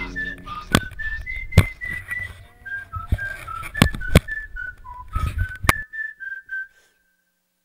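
A person whistling a tune in short, stepping notes, with several sharp knocks on the microphone; it stops about a second after the picture goes dark.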